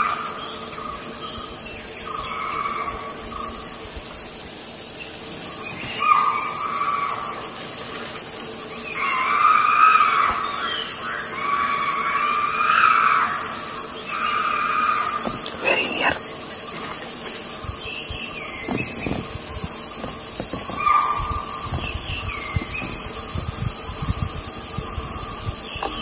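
An animal squealing in distress after being seized by a predator: long, high cries repeated every few seconds, loudest and longest around ten to thirteen seconds in. A steady high drone of insects runs underneath.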